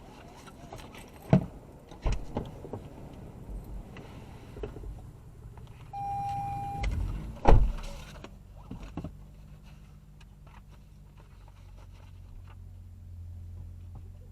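Sounds inside a car: scattered clicks and knocks, a short single electronic beep about six seconds in, then a heavy thud of a car door shutting at about seven and a half seconds, followed by a low steady hum.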